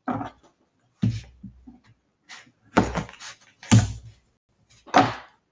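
A knife chopping through a cucumber on a paper plate: about five dull thuds, roughly a second apart, as the blade cuts down and strikes the plate.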